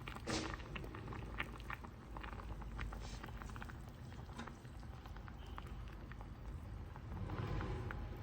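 Pot of bean paste soup bubbling on the stove: a scatter of small pops and ticks over a low simmer, a little louder near the end.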